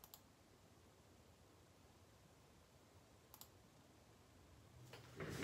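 Near silence with two faint, brief clicks, one right at the start and one about three and a half seconds in; a soft noise starts to build near the end.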